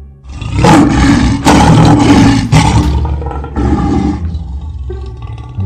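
Lion roaring loudly: a run of rough roars over the first three seconds, then one shorter roar about four seconds in.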